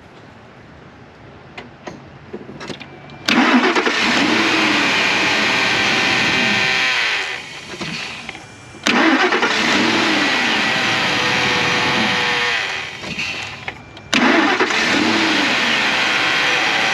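Ford F-150 engine being started three times: a few light clicks, then three loud attempts of about three to four seconds each, each beginning suddenly. This is the truck's hard-start fault being tested after a sensor was cleaned and refitted.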